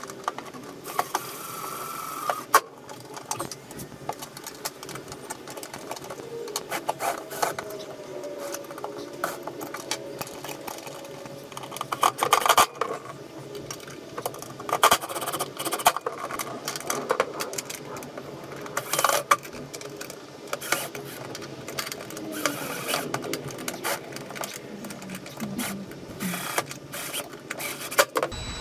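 Cordless drill running in repeated short bursts, its motor whine rising and falling, while driving screws to mount an amplifier inside a boat console. Knocks come between the runs.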